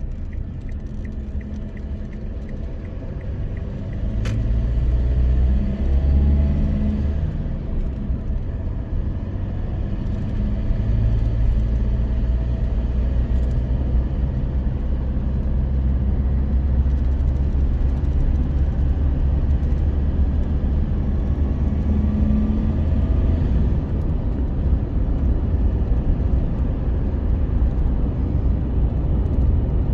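A motor vehicle's engine running with a steady low rumble. It grows louder a few seconds in, and its pitch shifts a few times.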